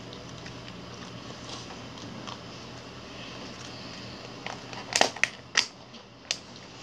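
Clear plastic lid being pressed onto a thin plastic takeaway food tub: a few sharp plastic clicks and crackles about five seconds in, with one more a second later as the lid snaps shut.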